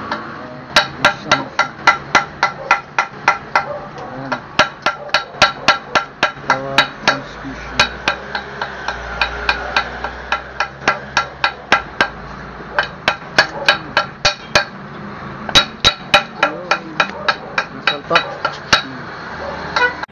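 Hammer striking metal in quick, even blows, about three a second, each with a short ringing tone, pausing briefly a few times: tapping parts into place on an opened motorcycle engine crankcase.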